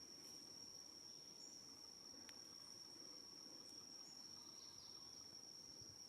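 Faint, steady, high-pitched insect drone that holds one unbroken tone, with a single faint click about two seconds in.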